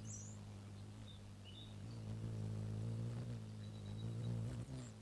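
Hummingbird wings humming steadily while hovering, a low buzzing hum that wavers slightly in pitch, with a few short, high bird chirps over it.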